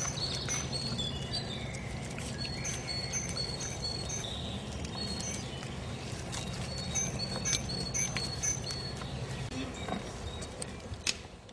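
Birds chirping with short, high, repeated calls over a steady low hum; the hum stops near the end.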